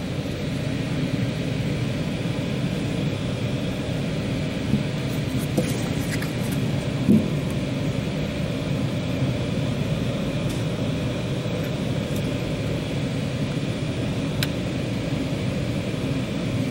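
Steady low rumble of background noise. A few faint clicks come through as two pistols are handled.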